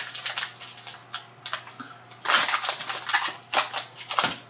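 Foil trading-card pack wrapper crinkling and crackling as it is handled and torn open by hand, in a run of crackles with the loudest stretch a little past halfway.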